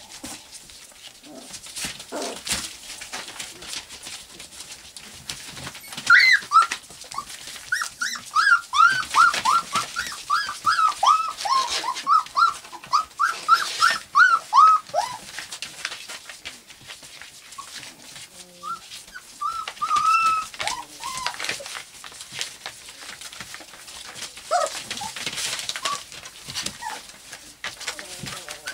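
Four-week-old golden retriever puppies whining and yelping in many short, high, falling calls, thickest from about six seconds in for some ten seconds, then scattered. Under them, the scratch and rustle of puppy paws on newspaper bedding.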